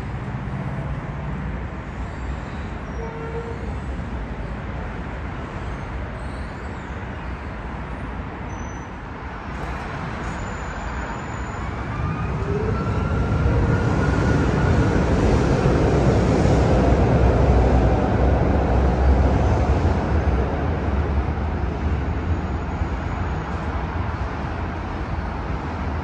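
Street traffic, then a tram passing close by: a low rumble swells from about halfway through and fades again near the end, with a faint rising whine as it comes in.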